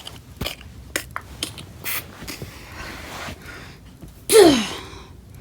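A few small clicks and taps, then about four seconds in a short, loud voice sliding down in pitch, like a vocal whoop or sound effect.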